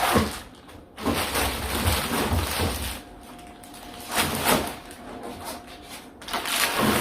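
Thick insulation material rustling and scraping as it is handled and fitted around a 12V fridge/freezer, in several bursts with short pauses between.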